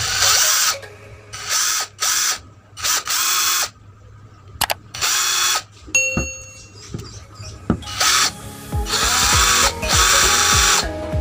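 HILDA 16.8 V cordless drill motor spinning in a series of short trigger pulls, most under a second, with a longer run of about a second and a half near the end.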